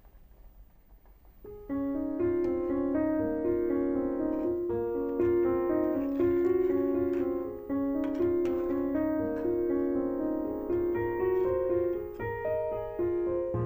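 Background piano music, coming in about a second and a half in.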